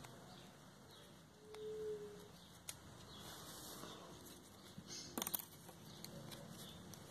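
Faint rustling of satin ribbon and thread as a bow loop is hand-stitched with a needle, with a few small clicks and a short cluster of sharper clicks about five seconds in. A brief faint steady tone sounds about a second and a half in.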